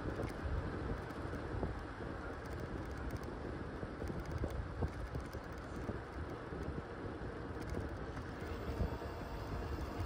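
Steady wind rush over the microphone, with low rolling road noise from riding a bicycle along asphalt.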